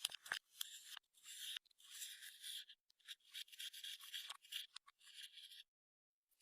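Clear slime being worked by hand while makeup and glitter are mixed in: sticky clicks and short runs of crackling as it is pressed and stretched, stopping near the end.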